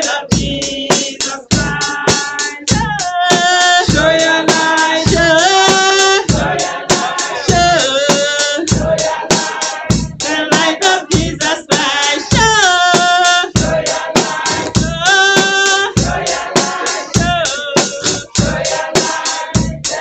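Upbeat gospel song sung by a group of women's voices over a steady, fast drum beat.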